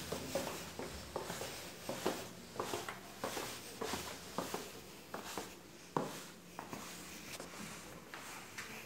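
Footsteps on a tiled staircase and floor: faint, irregular knocks about two a second.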